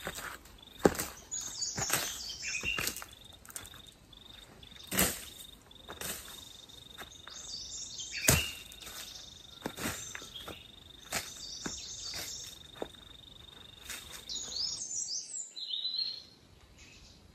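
A blade hacking through ferns and brush: irregular sharp swishing strikes a second or two apart, the loudest about eight seconds in. Behind them an insect drones steadily on one high note, and birds chirp.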